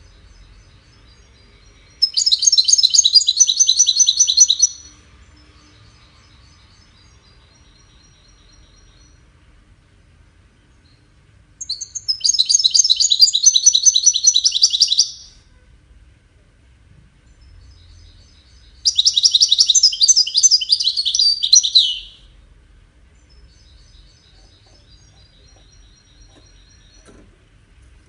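European goldfinch singing: three bursts of fast, high-pitched song, each about three seconds long, with faint soft notes between them.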